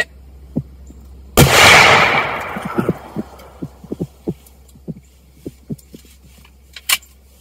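A single deer-rifle shot about a second and a half in, its report trailing off over about a second and a half. A string of faint soft knocks, about two a second, follows.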